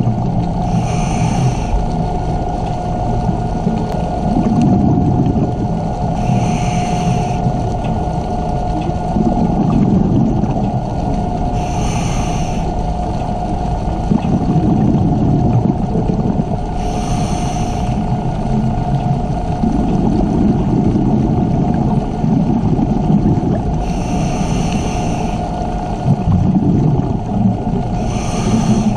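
Scuba diver breathing through a regulator, heard underwater through the camera housing: a rush of exhaled bubbles about every five seconds, six times, over a constant low rumble and a steady hum.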